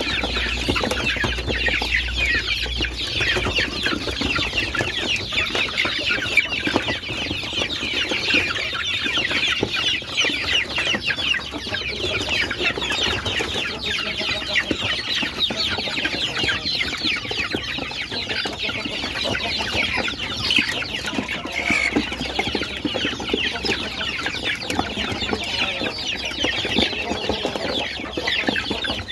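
A flock of young ayam kampung (Indonesian native village chickens) calling all at once, a dense, continuous high-pitched chatter of many short peeps and cheeps.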